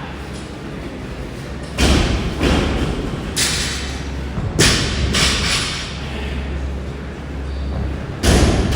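A 15 kg barbell loaded with 5 kg plates set down hard on the gym floor: five heavy thumps, the loudest about two seconds in and near the end.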